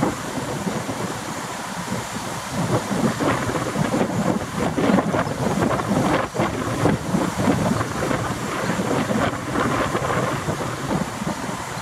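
Distant EN63A (PESA Elf) electric multiple unit rolling slowly toward the microphone over station points, under gusty wind buffeting the microphone that swells and dips, heaviest through the middle.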